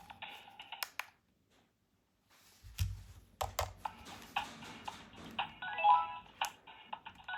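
Electronic beeping melody like a ringtone, with sharp clicks throughout and a low thump about three seconds in; the sound cuts out briefly a second in.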